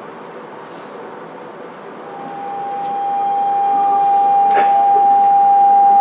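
Fukuoka City Subway 2000 series train's traction inverter whining as the train pulls away: a steady high tone comes in about two seconds in and grows loud under the rumble of the car, with a single clack near the middle.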